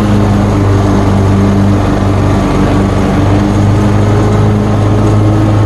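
John Deere lawn mower's engine running steadily while mowing thick, wet grass, a loud, even hum.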